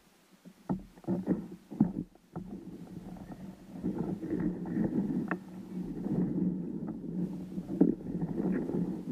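Kayak moving on the water with its electric motor running: a few knocks and splashes against the hull in the first couple of seconds, then a steady low hum with water rushing along the hull.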